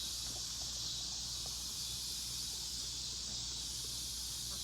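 A steady, high-pitched chorus of insects such as crickets, droning without a break.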